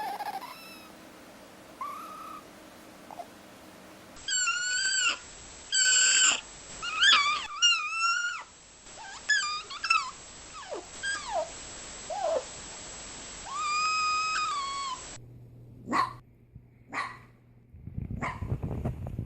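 Fennec fox giving a series of high-pitched whining, screaming calls, some wavering and some sliding down in pitch. Near the end come a few short, sharp calls about a second apart.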